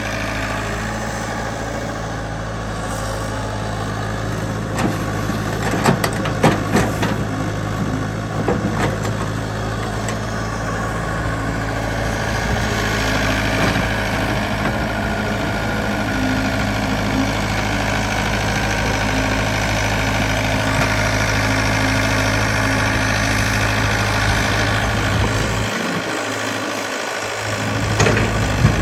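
Yanmar ViO70 mini excavator's diesel engine running steadily as the machine digs in mud. A few sharp knocks come about six to nine seconds in. The low engine hum drops out about two seconds before the end, where more knocks follow.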